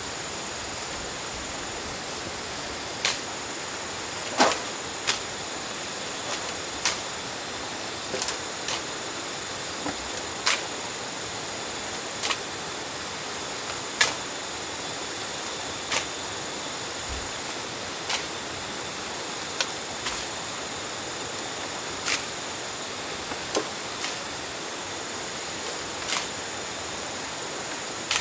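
Sharp knocks or taps, roughly one every one to two seconds at an uneven pace, over a steady high-pitched hiss.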